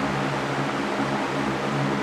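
Electric fan running steadily: a constant rush of air with a low motor hum underneath.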